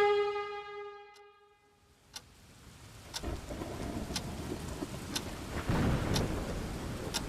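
A pitched, siren-like tone slides downward and fades out within the first second or so. After a short pause, a steady noisy rumble builds, with a sharp tick about once a second.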